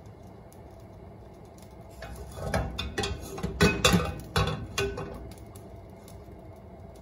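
A nonstick wok being shifted and swirled on a gas stove's metal grate: a run of clattering knocks and scrapes for about three seconds, the loudest near the middle, over a faint steady background.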